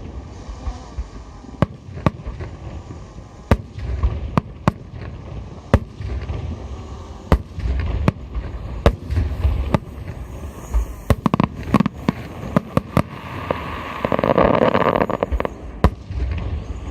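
Aerial fireworks shells bursting: sharp bangs at irregular intervals, often one or two a second, over a low rumble, with a louder, denser stretch of noise lasting about two seconds near the end.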